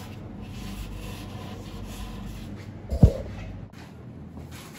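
Faint rubbing and handling sounds of a hand moving over the freshly sanded fiberglass patch on an epoxy surfboard's rail, with one dull thump about three seconds in.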